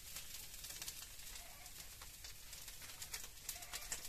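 Faint crackling and spitting of food frying in oil in a wok on a clay stove.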